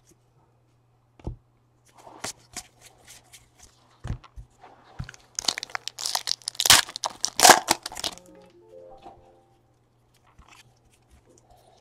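A foil trading-card pack being torn open and crinkled, among the light clicks and rustle of cards being handled. The crinkling is loudest about five to eight seconds in. Faint music comes in afterwards.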